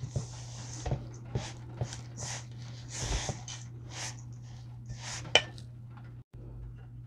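Plastic spoon stirring sticky shredded coconut in a stainless steel bowl, with irregular scraping strokes about twice a second and a sharper clink against the bowl about five seconds in. A steady low hum runs underneath.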